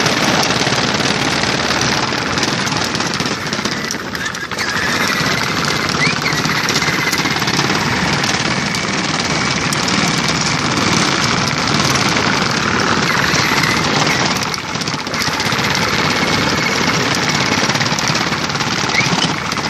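Fisher-Price Jeep Hurricane ride-on toy driving over bumpy ground: a loud, dense rattle of its hard plastic wheels and body, with a faint high whine, easing briefly twice.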